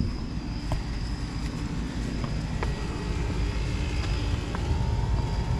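Steady low drone of running commercial air conditioning condensing units, their fans and compressors, with a faint steady hum tone joining about halfway through.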